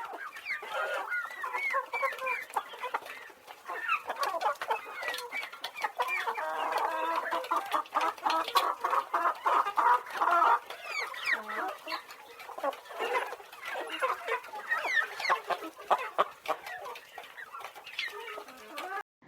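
A flock of chickens clucking and calling, many short overlapping calls, busiest around the middle.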